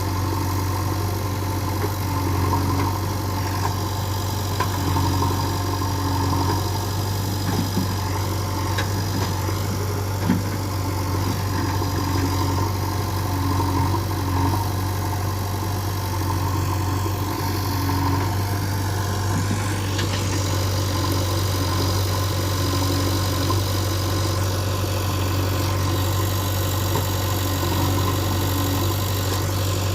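Diesel engine of heavy machinery running steadily at a low idle, with one short sharp knock about ten seconds in.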